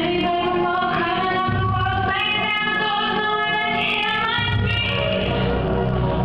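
Brazilian zouk dance music with a singing voice carrying a held, gliding melody; the low bass drops out about a second and a half in and comes back about three seconds later.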